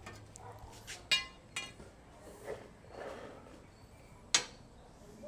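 Metal parts clinking against each other as they are handled, with three sharp ringing knocks about a second in, half a second later, and near the end.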